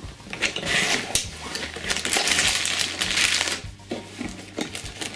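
Cardboard box flap being handled and plastic bags of LEGO parts rustling and crinkling as they are pulled out of the box, loudest in the middle.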